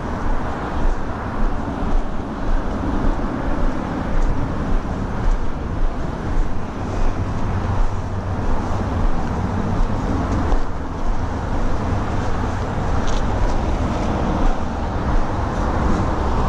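Footsteps on a dirt riverside trail, about two a second, over a steady low rumble. The steps are less distinct in the second half.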